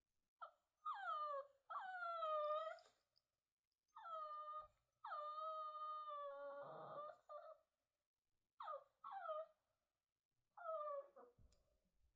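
A dog whining and crying: a string of high-pitched whines that each slide downward in pitch. Most are short, and two are drawn out for a second or two.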